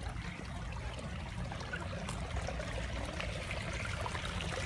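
Water trickling among rocks in a small garden stream, a steady splashing hiss, with a steady low rumble underneath.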